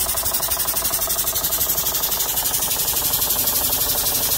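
Model single-cylinder horizontal mill-type steam engine running on compressed air at about 40 psi. Its exhaust puffs and mechanism clatter in a fast, even beat.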